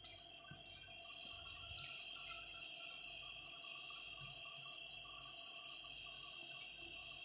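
Faint room tone with a steady high-pitched whine and a few light ticks early on.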